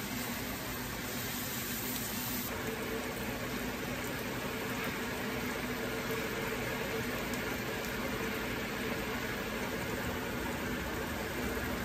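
Diced vegetables simmering and sizzling in a liquid-filled sauté pan, a steady hiss.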